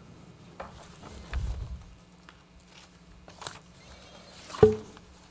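Quiet meeting-room tone with scattered small clicks and rustles, a low thump about a second and a half in, and a sudden short thump, the loudest sound, a little before the end.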